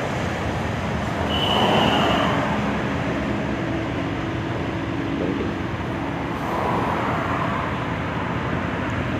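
Steady engine and road noise of an Ashok Leyland ten-wheel lorry on the move, heard from inside the cab, with a short high-pitched tone about a second and a half in.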